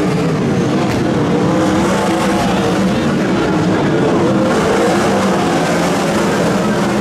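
Several 360 winged sprint cars' V8 engines running hard together on a dirt oval, a loud, steady sound with several pitches wavering against each other as the cars race past.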